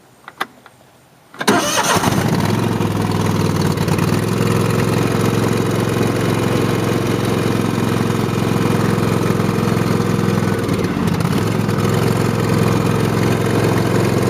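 Simplicity Legacy garden tractor's engine given a semi-cold start. Two short clicks come first, then the engine cranks briefly about a second and a half in and catches at once. It settles into steady running.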